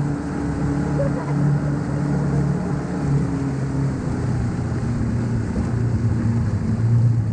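Motorboat engine running steadily under a constant rush of wind and water, its low hum dropping a little in pitch about halfway through as the boat eases off.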